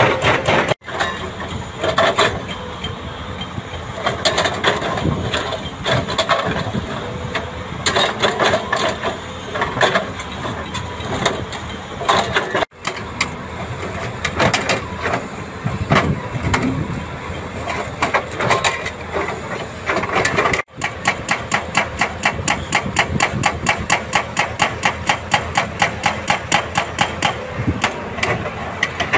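Excavator engines running, with irregular knocks and clanks of rock work. In the last third, a hydraulic rock breaker on a Doosan DX300LCA excavator hammers rock at a fast, even rate over the engine.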